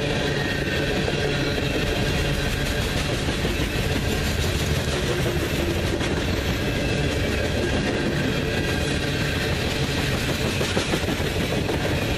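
Coal train cars rolling past at speed: a steady rumble of steel wheels on rail.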